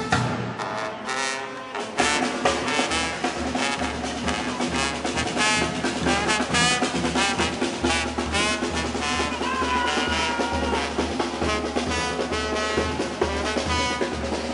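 Background music with brass instruments, quieter for the first two seconds and then fuller, with a steady beat.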